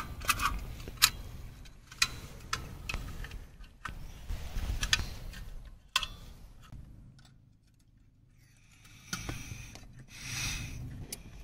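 Metal pot supports and fittings of a portable butane camping stove clicking and scraping as it is unfolded and set up, with a run of sharp clicks over the first half. Near the end a short rushing noise comes as the butane canister is brought to the stove and fitted.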